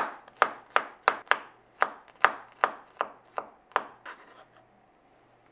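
Kitchen knife mincing a garlic clove on a wooden cutting board: about a dozen sharp chops, roughly three a second, stopping a little after four seconds in.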